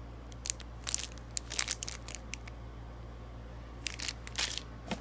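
Crinkling and crackling of plastic packaging being handled, in short clusters about half a second in, around one to two seconds in, and again near four seconds, over a steady low hum.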